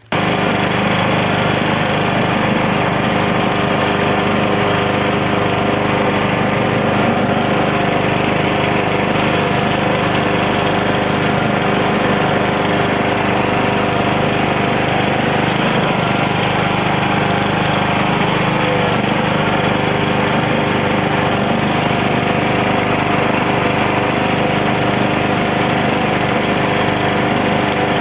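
Husqvarna lawn tractor engine running steadily at a constant speed as it pushes a plow blade through deep snow.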